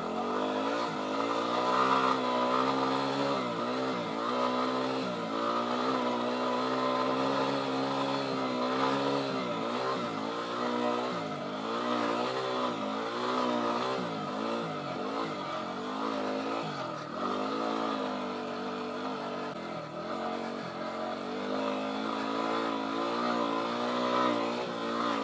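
Yamaha WR250R's single-cylinder four-stroke engine running while being ridden, its revs rising and falling every second or two as the throttle works against the sand.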